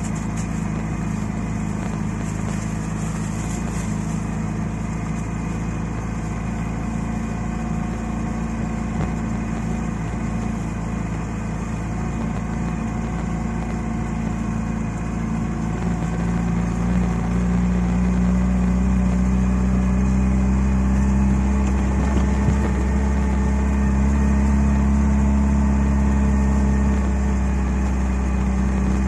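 Lada Niva's engine running steadily as the 4x4 drives through deep snow, heard from inside the cabin. It gets louder and heavier about halfway through.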